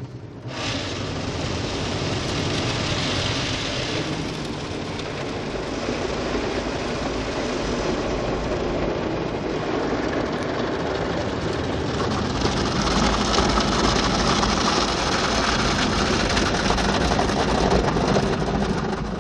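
Rotating brushes of an automatic car wash scrubbing over the car's windows and body with water spraying, heard from inside the cabin: a steady, rushing scrubbing noise. It swells about half a second in and grows louder again in the second half.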